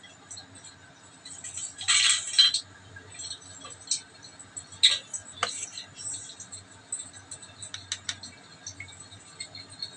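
Small metal spoon scraping in a stainless-steel bowl of flour, with a short scratchy rush about two seconds in. Scattered light clinks of the spoon against the bowl follow.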